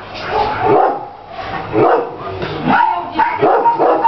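Dogs barking repeatedly, a bark about every half second to a second.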